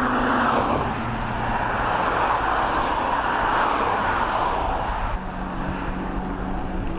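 Road traffic rushing by: a steady roar of tyres and engines that swells and fades as vehicles pass, with a low steady hum coming in about five seconds in.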